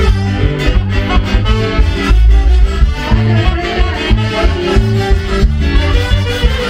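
Latin American dance music with accordion over a steady bass beat.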